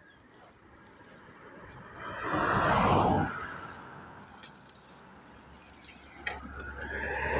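Leaves and branches rustling loudly as a fish-shooting crossbow is pushed through dense bushes, with a few light metallic clinks about halfway through.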